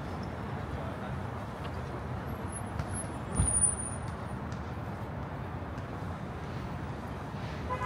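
Steady city street traffic noise, with a low thud and a brief high squeal about three and a half seconds in.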